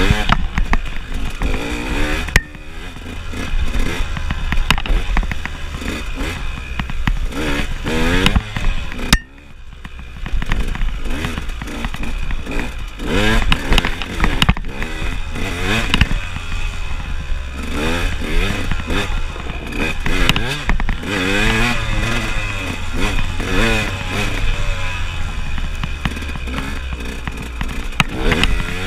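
KTM enduro dirt bike engine revving up and down again and again as it is ridden over rocky singletrack, the sound dropping away sharply twice, about two and nine seconds in, when the throttle is shut.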